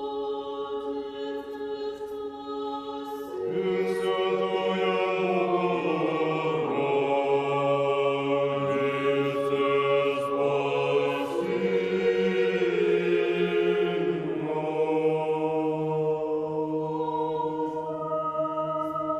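A choir singing slow, sustained chant-like chords. Lower voices join about three and a half seconds in, and the singing grows louder.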